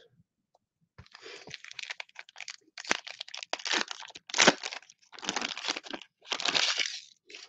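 Foil wrapper of a 2021 Panini Mosaic football card pack crinkling and tearing as it is ripped open by hand. It comes as irregular crackles starting about a second in.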